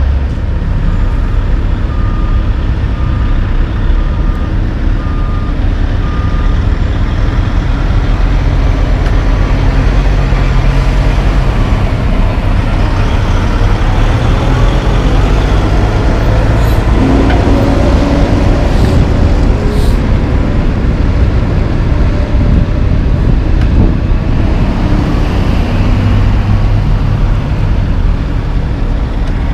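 Heavy diesel dump truck engines running loudly. For the first several seconds a truck's backup alarm beeps at one pitch, about once a second.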